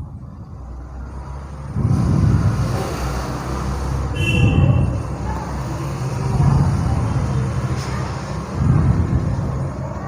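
Low rumble of road traffic, swelling about two seconds in and rising and falling in waves, with a brief higher tone just after four seconds in.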